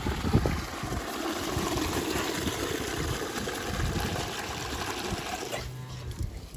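Milk pouring from a calf milk taxi's dispensing nozzle into a plastic bucket, a steady splashing, gurgling flow. Near the end the pour drops away, leaving a low steady hum.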